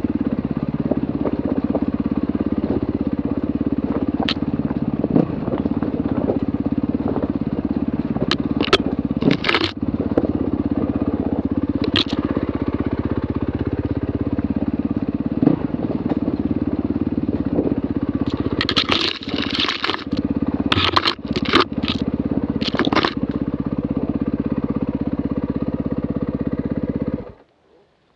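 Enduro dirt bike engine running steadily at low revs on a slow ride over a rocky trail, with sharp clacks and knocks of stones and the bike hitting rocks, thickest from about 18 to 23 seconds in. The engine note stops abruptly about a second before the end, as the bike comes to a halt.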